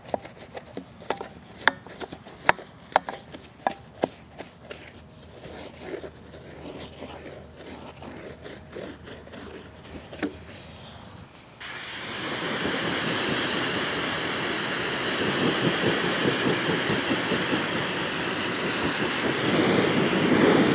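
A brush scrubbing a truck wheel and tyre, with scattered sharp knocks. A little over halfway through, a pressure washer's spray starts suddenly and hisses steadily as it rinses the wheel and tyre.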